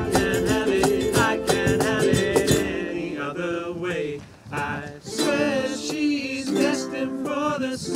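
A ukulele band with a cajon strumming and singing together. About two and a half seconds in, the strumming thins out and the sung voices carry the song, with short dips in loudness around the middle.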